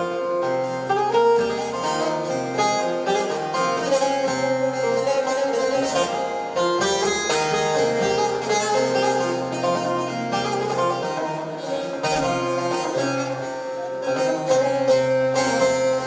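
Long-necked bağlama (saz) played solo: a quick, busy run of plucked notes over a steady ringing drone.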